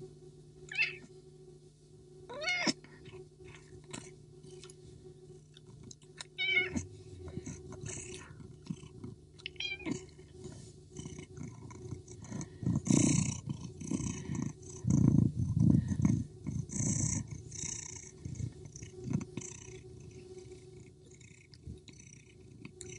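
Two domestic cats play-fighting: a few short wavering meows in the first ten seconds, then a stretch of louder, rough, noisy sounds from the cats as they wrestle.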